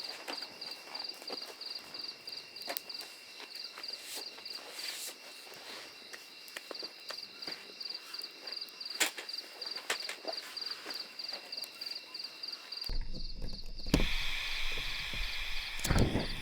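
Insects chirping in an even pulsing rhythm, about three pulses a second, over a steady high drone, with scattered sharp clicks. About thirteen seconds in the sound changes abruptly to a louder, deeper ambience.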